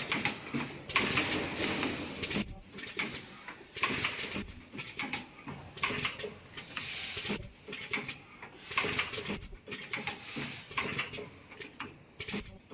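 Face mask ear-band spot welding machine running through its cycles, with short bursts of noise coming irregularly about once a second.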